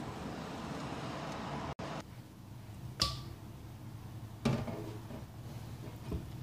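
Steady rushing noise of the wort boiling in a stainless pot on an induction hob. After a cut, the pot clinks against a water-filled stainless steel sink as it is set down and shifted by its handles: a sharp metallic clink with a brief ring about three seconds in, a heavier ringing knock about a second and a half later, and a light knock near the end.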